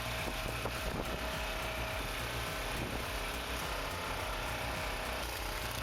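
A machine's engine running steadily at an even level, with no distinct impacts or changes in pitch.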